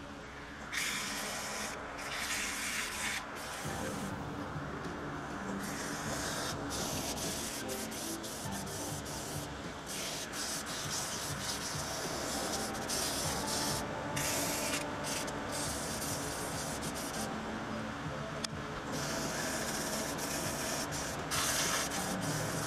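Sandpaper held by hand against a wooden gavel blank spinning on a wood lathe. The sanding hiss starts and stops repeatedly as the paper is pressed on and lifted, over the steady hum of the running lathe.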